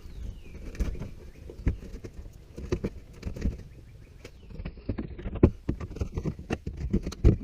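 Irregular light clicks, taps and knocks of hand tools and metal parts being handled.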